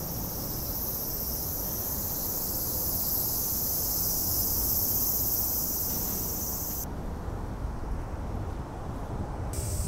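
Cicadas giving a steady, high, shrill buzz that cuts off about seven seconds in and starts again near the end, over a low rumble of wind on the microphone.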